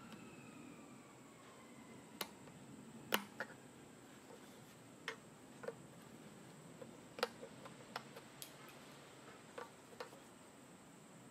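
About a dozen small, sharp clicks and taps at irregular intervals, the loudest about three seconds in. They come from a screwdriver and plastic parts being handled while the old primer bulb is worked out of a Briggs & Stratton small-engine carburetor.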